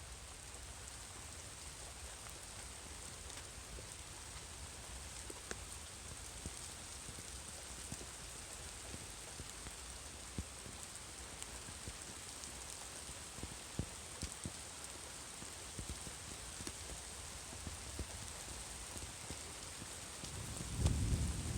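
Thunderstorm rain falling steadily, with scattered drops ticking on a nearby surface. Near the end a low rumble of thunder begins.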